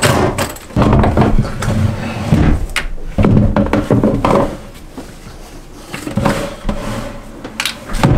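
Heavy AGM batteries being handled into a battery box: irregular clunks, thuds and scraping as they are lifted, shifted and set down. There is a sharp knock near the end.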